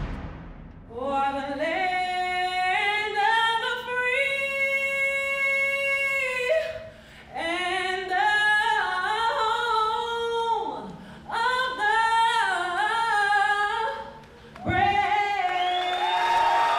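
A woman singing solo without accompaniment, in phrases with long held notes and short breaths between them. Near the end a crowd starts cheering and applauding.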